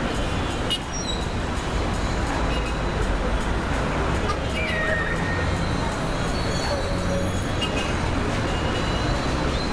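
A loud, steady din of ambient noise with an indistinct murmur of voices in it. No single clear event stands out.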